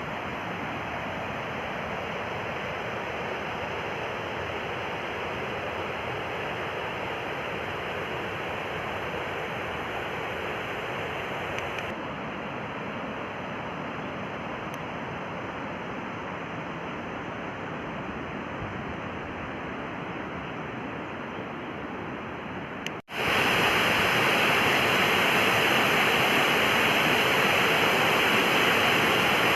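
Steady rush of a mountain waterfall. About two-thirds of the way through it cuts out for an instant and comes back louder.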